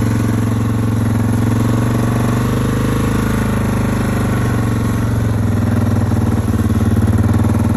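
ATV engine running steadily at low revs, a little louder near the end.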